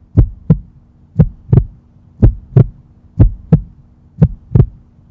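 Heartbeat sound effect: double beats, lub-dub, about once a second, five pairs in all, over a steady low hum.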